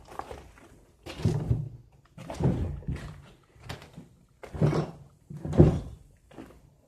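A series of heavy thuds and scrapes, roughly one a second, with a short echo after each; the loudest comes near the end.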